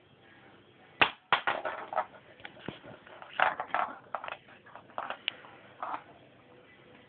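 A kitten at play, making an irregular run of knocks, scrapes and rustles. It starts with a sharp knock about a second in, the loudest sound, has a busy cluster around three and a half seconds, and dies away near six seconds.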